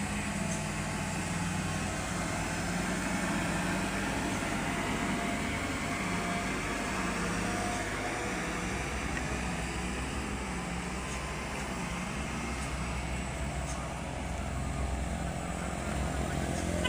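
Heavy-vehicle diesel engine running steadily, its pitch wavering slightly up and down.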